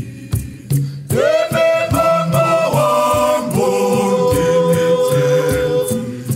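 A women's choir singing a Shona gospel hymn of thanks over a steady beat; about a second in the voices swell and hold long notes.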